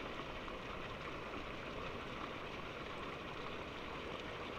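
Steady rush of running water, with no distinct events.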